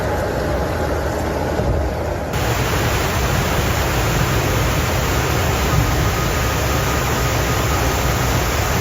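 Steady rushing noise with no clear tone. About two seconds in it changes suddenly to a brighter, hissier rush.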